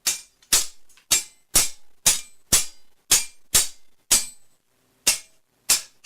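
A series of about eleven sharp, bright strikes at roughly two a second, each with a short ring, with one slightly longer pause near the end.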